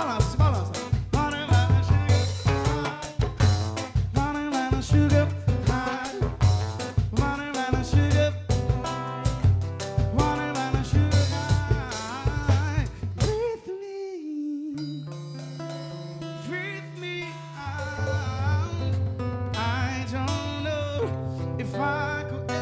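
Pop band music: drum kit and bass keeping a steady beat under guitar and melody lines, breaking off about 14 s in into a softer passage with long held bass notes.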